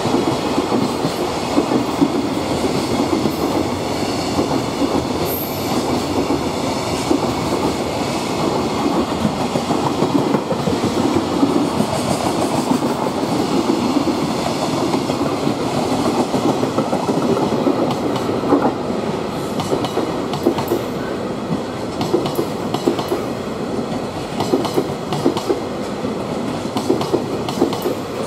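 Long JR Freight container train rolling past, the wheels of its flat wagons clattering steadily over the rail joints over a continuous rumble, with sharper joint clicks in the last third.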